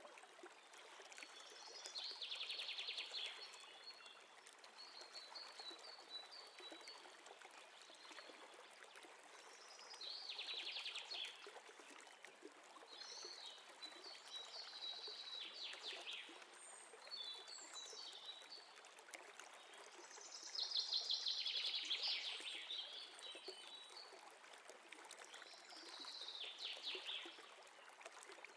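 Birds singing in short trilled phrases every few seconds, with high chirps between them, over a steady hiss like running water.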